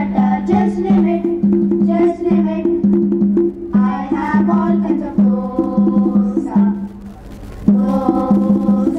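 Music accompanying a glove-puppet show: a low note pulsing in a steady rhythm, with wood-block-like percussion clicks and voices over it. It thins out briefly about two-thirds of the way in.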